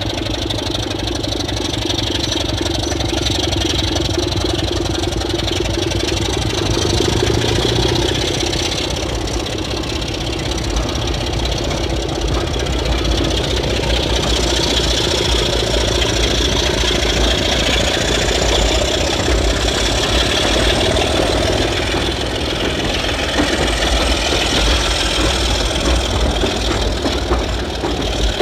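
British Rail Class 27 diesel locomotive 27 036, its Sulzer six-cylinder engine running steadily. The engine note gets a little louder and fuller about halfway through.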